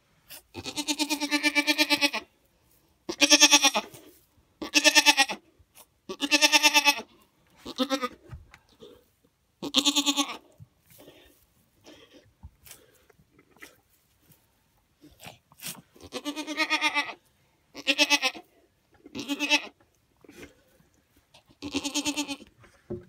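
Goat bleating: about ten loud calls of half a second to a second and a half each, with a lull of a few seconds in the middle.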